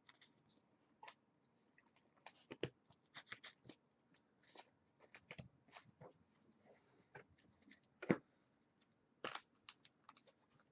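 Faint scattered rustles, clicks and taps of trading cards and card packaging being handled, with a louder tap a little past the middle and another soon after.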